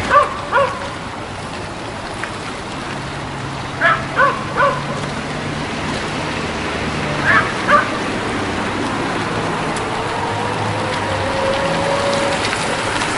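Golf cart driving, a steady noise of motor and tyres with a faint whine that rises slowly in the second half. Short sharp calls break in twice at the start, three times about four seconds in, and twice more about seven seconds in.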